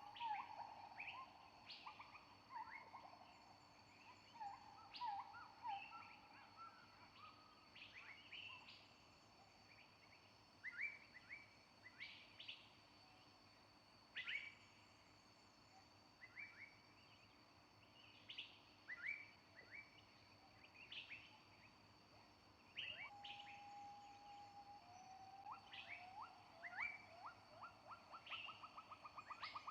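Faint birdsong: short, scattered chirps and whistles, with a few held notes and a rapid trill near the end.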